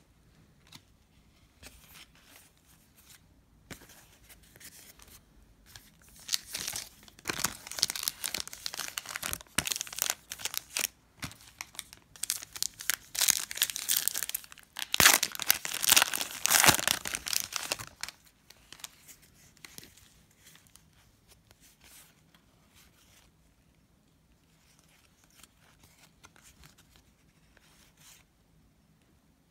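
Plastic-foil wrapper of a Donruss basketball card pack being torn open and crinkled by hand, loudest about halfway through, then faint handling of the cards.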